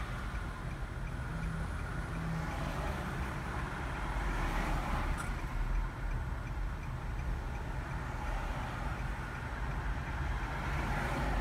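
Car turn-signal blinker ticking at a steady rate, over a steady low rumble of a car and road traffic.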